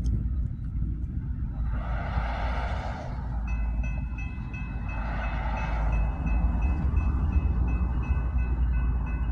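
A mechanical railroad-crossing bell starts ringing about three and a half seconds in, with rapid, steady strikes that ring together, over a low rumble. Two blasts of about a second each come earlier and midway.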